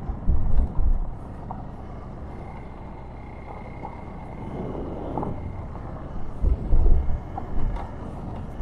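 Hero Xpulse 200 4V single-cylinder motorcycle riding over a dirt and gravel track, its engine and tyre noise steady under wind rumble on the microphone. Heavy wind buffets come in the first second and again about seven seconds in.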